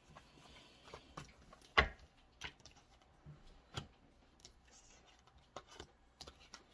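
Scattered soft clicks and taps of tarot cards being handled, with one sharper knock about two seconds in.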